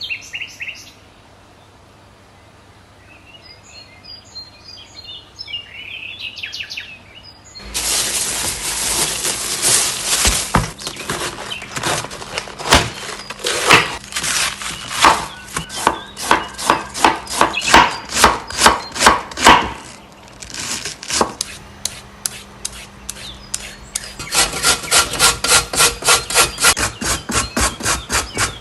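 Faint birds chirping, then loud rasping, scraping strokes of vegetables being worked by hand on a board. The strokes are irregular at first, ease off for a few seconds, then settle into a steady rhythm of about three a second.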